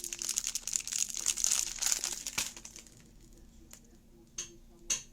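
Packaging crinkling and rustling as it is handled, dense for about the first three seconds, then a few separate clicks and taps near the end.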